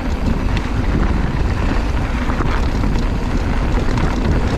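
Wind buffeting the microphone over the rumble of a Pivot Switchblade 29er mountain bike's tyres and drivetrain on a rough trail at speed, with a few faint clicks.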